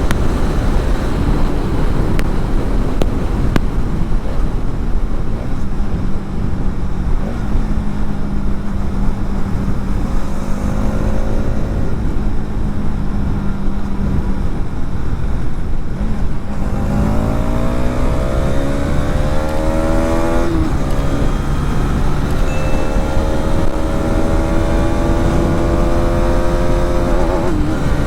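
Hero Xtreme 250R's single-cylinder engine under way, with heavy wind rush on the microphone. About halfway through, the engine revs up, rising in pitch, drops at a gear change, then pulls up again before another shift near the end.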